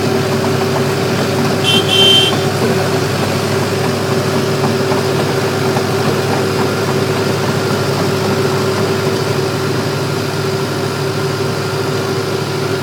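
Bulldozer's diesel engine running steadily at an even pitch, with a brief high double chirp about two seconds in.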